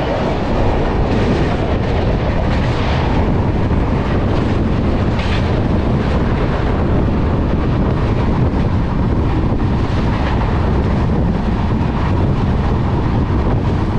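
Steady rumble of an express train running, heard from an open coach doorway, with wind buffeting the microphone. A second train's coaches run close alongside on the next track.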